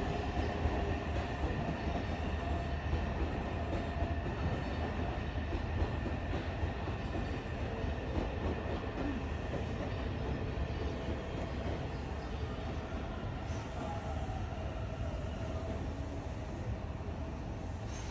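Odakyu Line electric commuter train running on the station tracks: a steady low rumble with a faint whine, slowly getting quieter.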